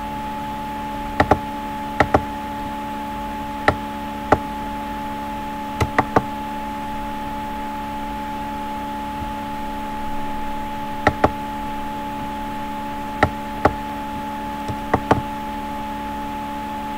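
Computer mouse clicking, about a dozen sharp clicks spread irregularly, several of them double clicks, over a steady hum made of a few fixed tones.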